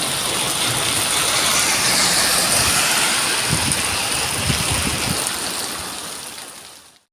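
Steady rain hiss that swells a little in the middle and fades out near the end.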